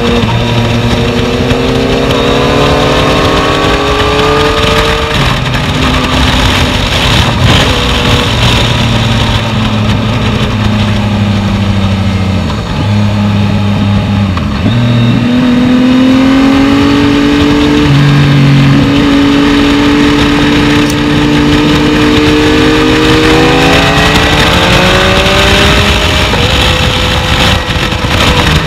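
Yamaha MT-09's inline-three engine running as the bike is ridden. Its pitch climbs and falls with the throttle through the bends, dropping away about halfway through and then rising again.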